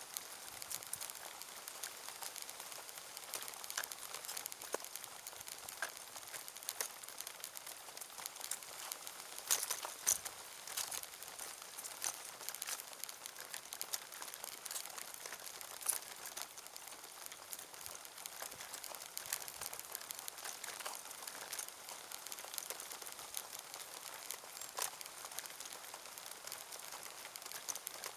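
Continuous irregular crackling and crinkling, with scattered sharp clicks and no steady rhythm.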